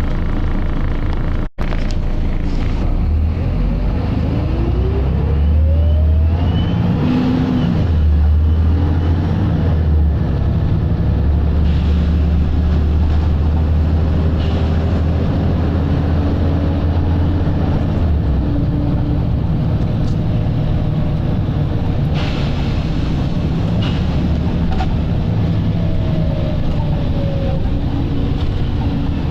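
Volvo B7RLE bus's diesel engine running under load: the pitch rises a few seconds in, then a heavy steady drone holds, easing off in the second half. A brief dropout about 1.5 seconds in.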